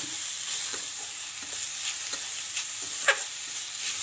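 Grated carrot halwa frying and sizzling in ghee in a metal kadhai while a metal spatula stirs and scrapes the pan, with one sharper scrape about three seconds in.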